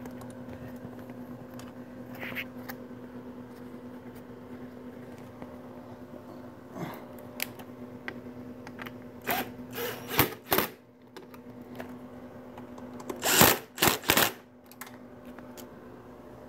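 Plastic body panels of a Honda Grom being pushed and clipped back into place: scattered sharp clicks and knocks, the loudest cluster about two thirds of the way through, over a steady low hum.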